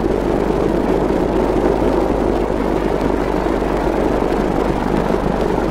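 A steady mechanical running noise over a constant low hum, with no change in pitch or level.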